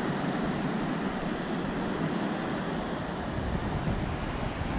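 Ocean surf breaking and washing up onto a sandy beach: a steady, even rush of noise.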